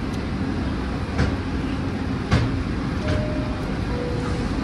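New York City subway train standing at the platform with a steady hum, and two sharp knocks about a second and two seconds in, the second the louder. Near the end a two-note falling door chime sounds as the doors begin to close.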